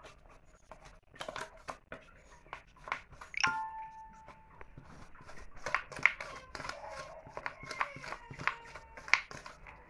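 Steel tumbler pounding and pressing boiled potato and dried chilli against a steel plate: a run of irregular knocks and clicks, with one clear metallic ring about three and a half seconds in.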